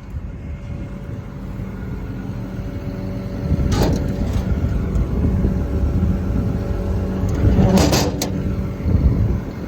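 Cummins diesel engine of a tracked excavator idling steadily, with two sharp knocks or clatters, one about four seconds in and one near eight seconds.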